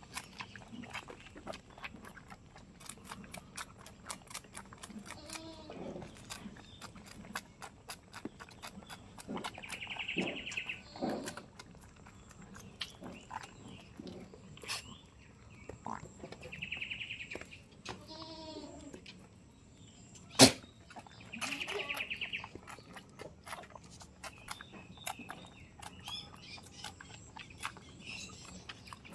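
Goats bleating every few seconds, some calls lower and bending in pitch, others higher and shorter, over many small clicks and knocks. A single sharp knock stands out about two-thirds of the way through.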